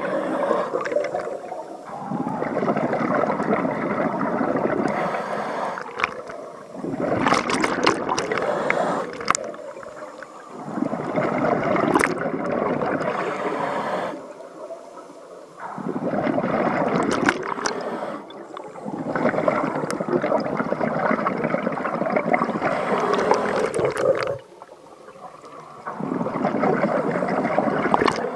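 Scuba diver's exhaled bubbles from the regulator underwater, rushing and gurgling in bursts of a few seconds each, with quieter pauses between breaths. There are about six exhalations in a slow, regular breathing rhythm.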